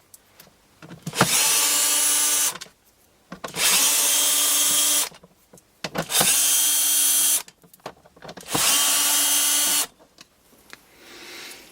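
Power drill with a hex screw bit undoing screws, running in four separate steady bursts of about a second and a half each. Small clicks of handling fall between the bursts.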